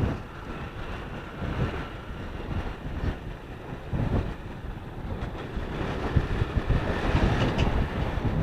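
Motorcycle engine running under way as the bike is ridden, with wind buffeting the microphone.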